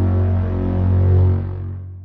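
Cinematic braam sound effect: a deep, held pitched blast with many stacked overtones, fading out from a little over a second in.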